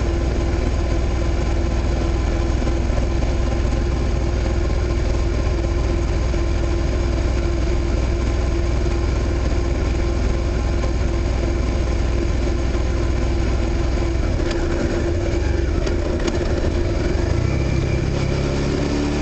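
Suzuki SV650 V-twin motorcycle engine ticking over at low revs in sixth gear while the bike rolls downhill with little throttle. Near the end the engine note rises.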